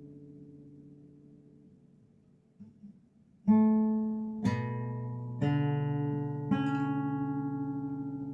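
Guitar played slowly: a chord rings and fades, then after a pause four chords are struck about a second apart and each is left to ring out.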